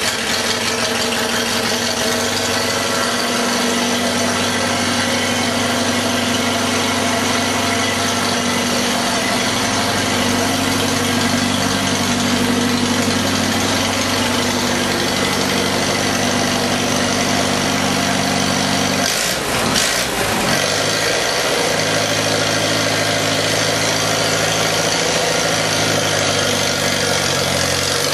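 A 1948 Farmall Cub's four-cylinder flathead engine idling steadily just after a cold start in freezing weather. About two-thirds of the way through, the engine note dips briefly and then settles back to an even idle.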